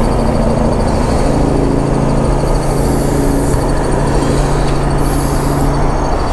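A loud, steady motor drone with a rushing noise over it.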